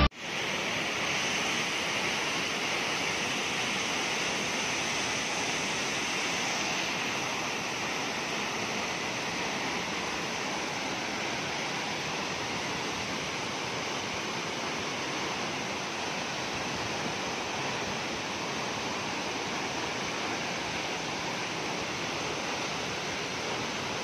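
Tall waterfall plunging onto boulders: a steady, hissy rush of falling water.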